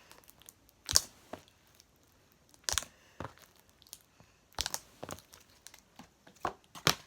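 Clear slime being squeezed and stretched by hand, giving off scattered sharp crackles and pops, about six over several seconds.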